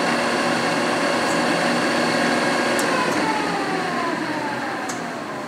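Tominaga radial arm drill press spindle drive running steadily at 1175 RPM with a gear whine, then slowing from about halfway through, its whine falling in pitch as the spindle winds down. A few faint clicks come from the levers.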